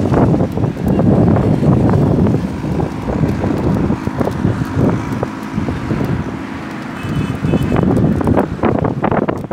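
Strong wind buffeting the phone's microphone in gusts, a loud uneven rumble, strongest in the first couple of seconds, with road traffic underneath.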